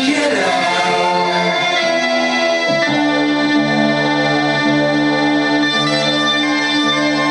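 Music: held organ-like keyboard chords with no singing, the chord changing about three seconds in.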